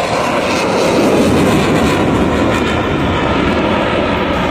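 Loud, steady jet noise from an F/A-18 Super Hornet flying a display pass overhead. It swells slightly about a second in, then holds.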